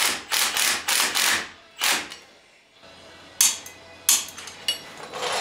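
Compact cordless impact driver hammering in four short bursts as it runs down the fasteners of a brake backing plate on a Ford 8.8 rear axle. After a pause come a few sharp metallic clicks from a torque wrench as the fasteners are brought to torque.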